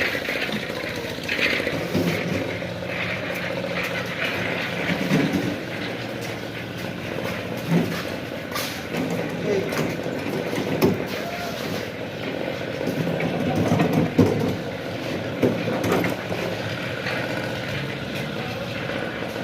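Engine-driven concrete mixer machine running steadily, with occasional knocks and clatter.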